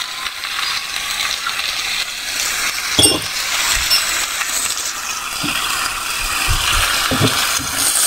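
Cabbage, onion and freshly added raw potato and carrot chunks crackling and sizzling in a frying pan on high heat, with a sharp clink about three seconds in and a few soft knocks later.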